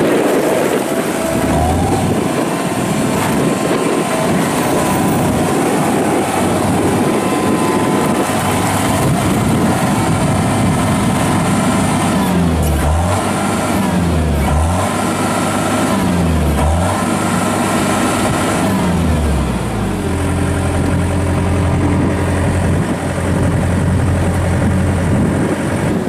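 A 2008 John Deere 317 skid steer's 61-horsepower four-cylinder turbo diesel runs at working revs while the loader is driven and its bucket lowered. The engine note dips and recovers four times in quick succession midway, then holds steady.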